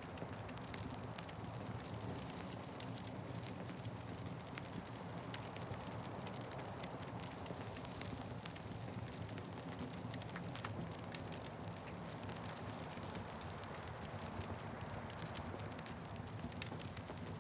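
Wood fire crackling: many small, sharp pops and snaps scattered over a steady low rush.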